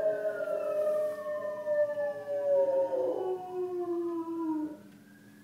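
A dog howling at an emergency-vehicle siren: one long howl that slides slowly down in pitch and stops about a second before the end, while the siren keeps wailing, its pitch falling and then rising again.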